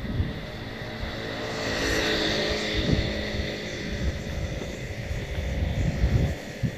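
A motor vehicle driving past on the street, its engine hum and tyre hiss swelling to a peak about two seconds in and then fading, with irregular low thumps underneath.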